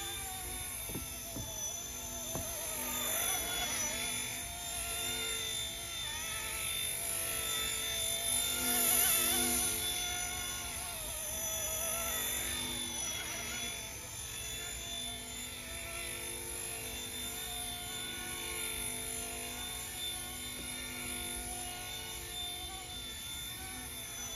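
Small RC ERA C189 MD500 scale model helicopter in flight: a steady motor and rotor whine made of several tones, whose pitch wavers up and down with throttle. It is loudest about nine seconds in.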